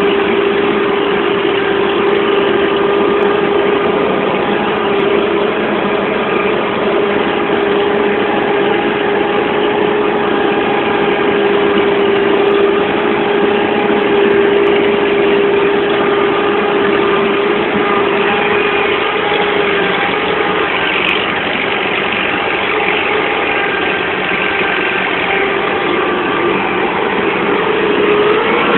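U-650 tractor's four-cylinder diesel engine running steadily under ploughing load, heard from the driver's seat. The note stays at a constant pitch and level throughout.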